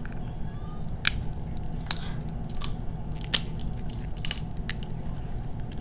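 King crab leg shell being cracked and pulled apart by hand: a string of short sharp cracks and crunches, the loudest about a second in, just before two seconds and a little past three seconds, over a steady low hum.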